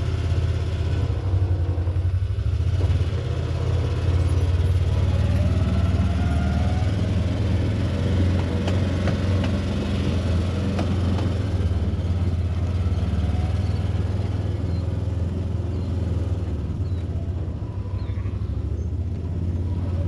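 Vehicle engine running as a steady low drone.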